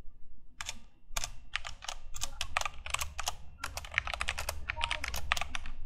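Typing on a computer keyboard: a fast, irregular run of keystrokes that starts about half a second in.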